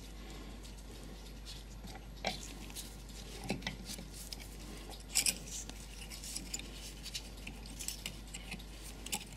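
Scattered light metallic clicks and taps as small brass clock-movement parts and tools are handled on the workbench, the sharpest pair about five seconds in, then a run of small ticks.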